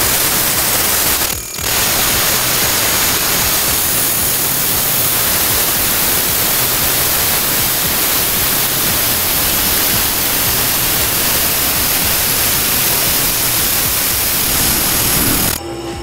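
Brake lathe resurfacing a warped front brake rotor from a Toyota Crown Majesta, the cutting tool shaving the spinning disc face with a steady, loud hiss. The hiss dips briefly about a second and a half in and cuts off just before the end.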